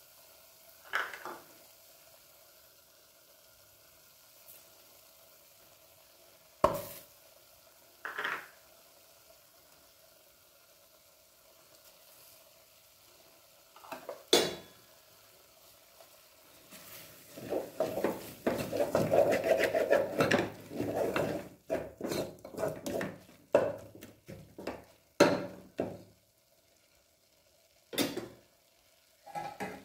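Spoon stirring and scraping through a thick pickle in an aluminium pot, knocking against the pot. A few separate knocks come first, then several seconds of dense scraping and clattering past the middle, then a few more knocks near the end.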